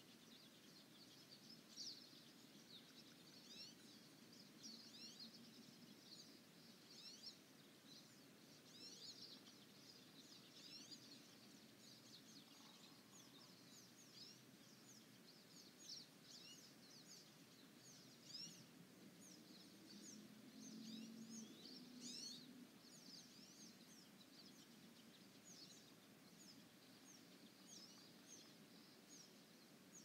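Faint spring dawn birdsong: several birds giving quick high chirps and trills throughout. A brief low hum comes about two-thirds of the way through.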